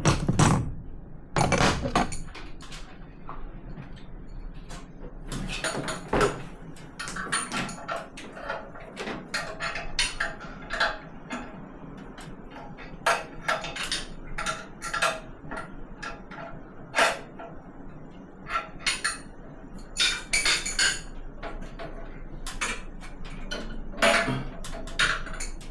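Irregular metallic clinks, clatter and knocks from tools and parts being handled during the water-heater installation work.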